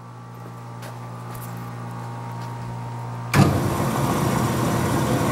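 Doall 1612-0 vertical bandsaw, wired for 220 V three-phase, starting up and running: a steady low motor hum grows louder as the drive comes up to speed, then the running noise jumps suddenly much louder about three and a half seconds in and stays there.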